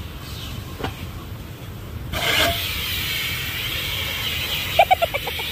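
Car wash vacuum hose drawing air: a steady hiss that comes in sharply about two seconds in, over a low rumble.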